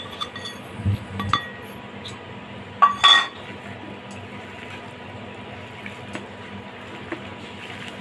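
A metal spoon clinking against a metal mixing bowl: a couple of light ringing taps about a second in, then two louder clinks about three seconds in. A steady low hum runs underneath.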